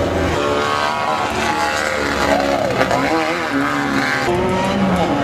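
Off-road race vehicle engines revving, several running at once, their pitch rising and falling as the throttles open and close.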